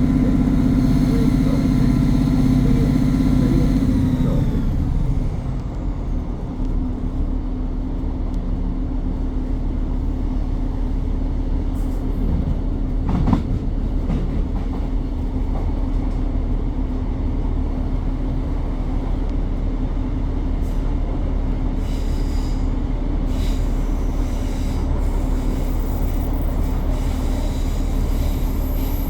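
Class 150 diesel multiple unit heard from on board: its underfloor diesel engine runs under power with the turbocharger whistling, then about four seconds in the power comes off and the whistle and engine note fall away. What remains is the steady rumble of the coasting train on the rails, with a few clicks from the track.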